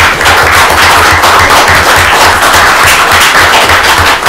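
A roomful of people applauding, many hands clapping densely and loudly.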